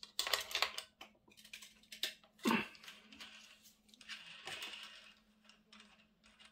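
Metal clicks and scraping as a flat wrench works the axle locknut of a Shimano Alfine 11 internal gear hub, with one heavier clunk about two and a half seconds in. A softer rasp follows as the loosened locknut is turned off the threaded axle by hand.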